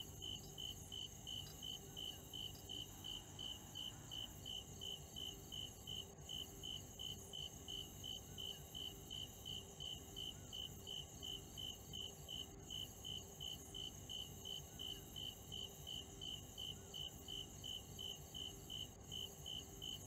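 Insects chirping in a faint, even rhythm, about two to three chirps a second, over a steady high-pitched drone.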